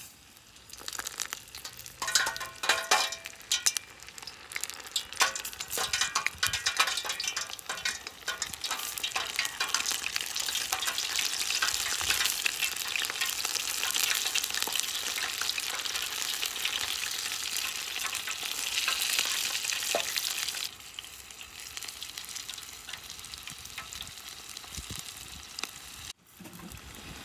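Coated crayfish deep-frying in a saucepan of hot oil: crackling spits as the pieces go in, building to a dense, steady sizzle. The sizzle drops to a quieter level about three-quarters of the way through and breaks off for a moment near the end.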